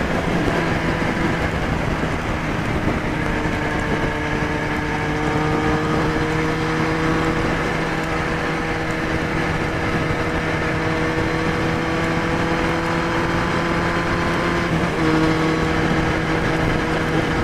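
Kawasaki Z1000 inline-four engine breathing through a Hurricane Evolution exhaust tip, running at a steady cruise on the road. Its even note climbs slowly and shifts briefly about fifteen seconds in, over a constant rush of wind and road noise.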